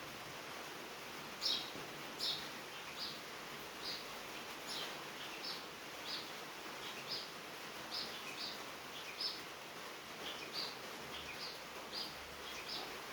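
Soft rain pattering on a tin roof as a steady hiss, with a bird repeating short, high, falling chirps about once a second from about a second and a half in.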